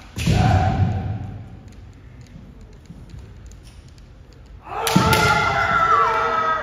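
Kendo kiai shouts from fencers in armour. A loud shout comes right at the start, then about five seconds in a sharp impact is followed by a long drawn-out shout that drops in pitch at its end.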